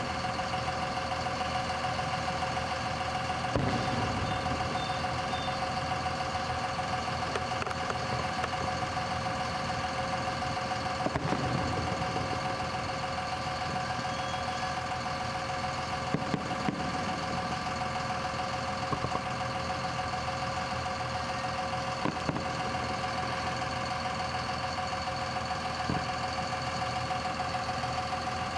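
Aerial fireworks shells bursting, heard as several short, sharp pops a few seconds apart, over a steady droning hum.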